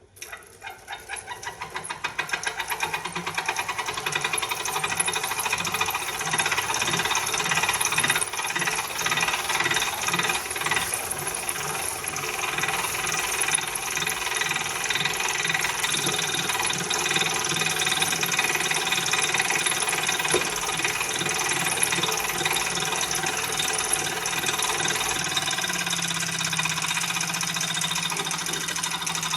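Wahoo Kickr smart bike trainer spinning up and running with a fast, even knocking over a steady high whine; the knocking is the unwanted noise the trainer has developed.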